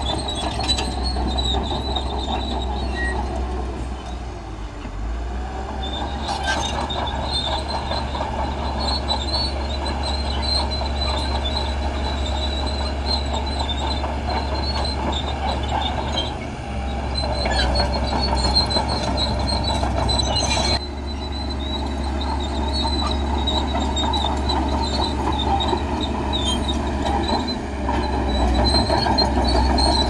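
Shantui crawler bulldozer's diesel engine running under load as it pushes sand, with a high, on-and-off squeal from its steel tracks.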